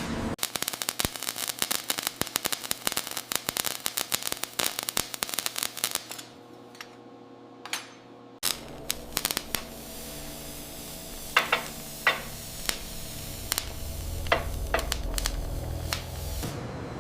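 Dense, rapid crackling of many small clicks for about six seconds, then a low steady machine hum with scattered sharp ticks from about eight seconds in.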